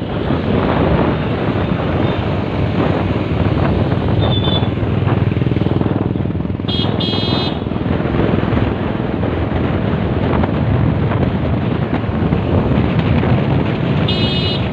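Wind rushing over the microphone and road noise from a moving scooter in town traffic, with a vehicle horn honking briefly about seven seconds in and again near the end.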